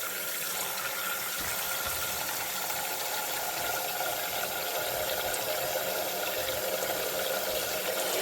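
Water from a tap running steadily into a humidifier's water tank as it is filled, growing slightly louder.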